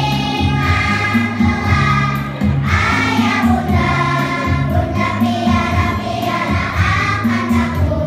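A group of young children singing a song together over a loud musical accompaniment with a steady bass line.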